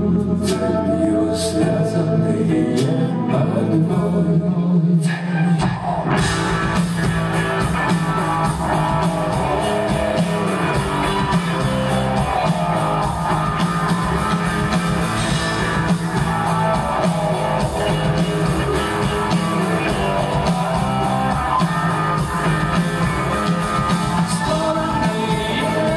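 Live rock band playing, led by electric guitars; about six seconds in, the full band comes in and the sound fills out with bright cymbal-like wash.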